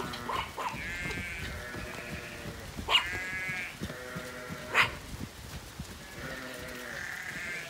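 Zwartbles sheep bleating repeatedly as the flock is driven along, some calls high-pitched and some deeper, overlapping in places. Two sharp knocks, one about three seconds in and one about five seconds in.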